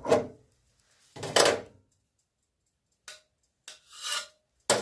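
Stainless-steel vacuum flasks and their lids being handled: a string of short rasping, scraping bursts with silent gaps between, the two loudest in the first second and a half.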